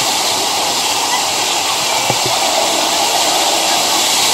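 Water jets of a ground-level interactive fountain spraying up and splashing back onto wet paving: a steady rush of falling water.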